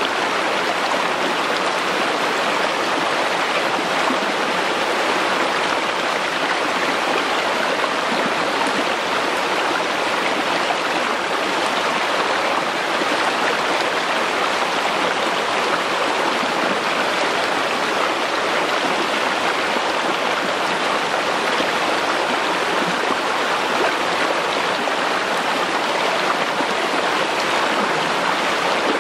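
Rocky forest stream running, a steady even rush of water.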